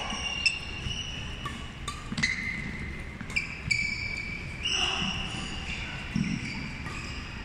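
Badminton rally: several sharp racket hits on the shuttlecock, with sneakers squeaking in short high-pitched chirps on the wooden court floor.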